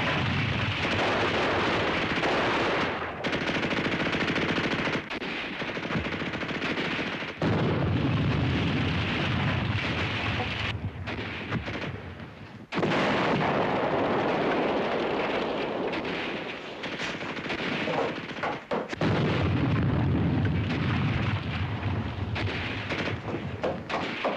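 Film battle sound effects: machine-gun and rifle fire in a dense, continuous barrage with explosions, broken by short lulls every few seconds.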